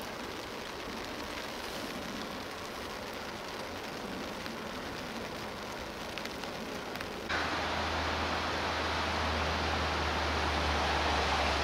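Steady rushing noise of rain and floodwater flowing over a road. About seven seconds in it jumps to a louder rush with a steady low rumble underneath.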